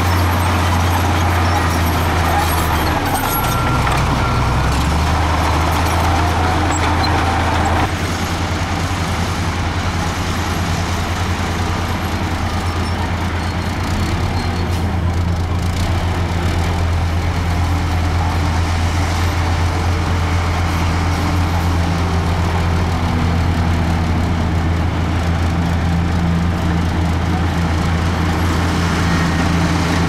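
Heavy diesel engines running steadily: a Komatsu crawler dozer's engine while it pushes dirt, its pitch dipping briefly about four seconds in, then after an abrupt change about eight seconds in, a dump truck's engine as its bed tips up to unload soil.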